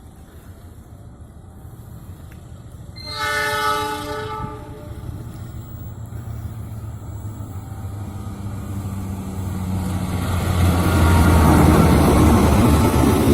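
KAI CC206 diesel-electric locomotive hauling a passenger train: one horn blast about three seconds in, lasting about a second and a half. The locomotive's low engine drone then grows steadily louder as the train draws near.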